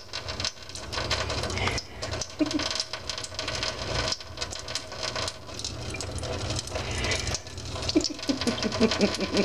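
Thin stream of tap water from a kitchen faucet spattering into a stainless steel sink, full of small irregular ticks and splashes as a cat paws at the falling water.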